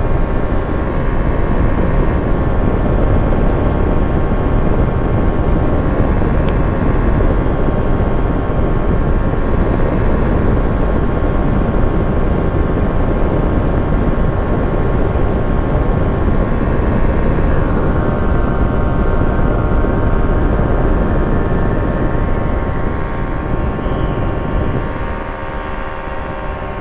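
Quad City Challenger II ultralight's engine and propeller droning steadily in cruise flight, with a rush of air. It becomes a little quieter near the end.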